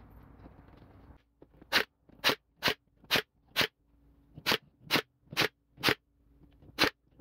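Nail gun firing ten times, about two shots a second with a short pause midway, driving nails into pine tabletop boards.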